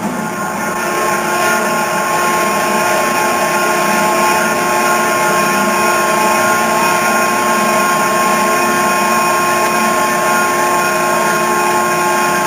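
A machine running steadily with a constant whine, unchanging throughout.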